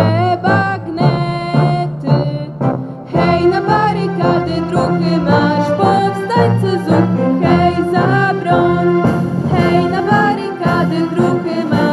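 Girls and a woman singing a song together into microphones, over a steady instrumental backing.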